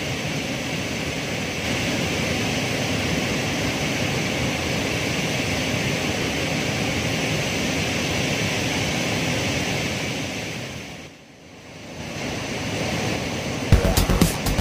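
A flood-swollen river rushing steadily over rocks. The rush dips briefly about eleven seconds in, and music with a beat comes in near the end.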